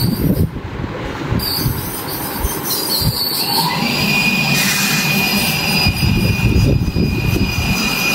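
Dental scaler running during a teeth scaling, a steady high whine over a hissing noise, the whine setting in about three and a half seconds in.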